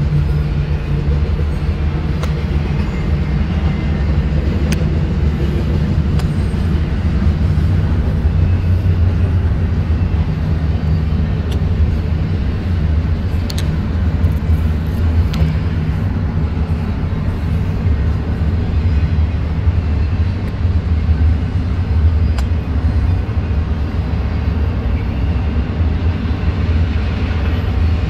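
Freight train passing: a steady low rumble with a few faint clicks.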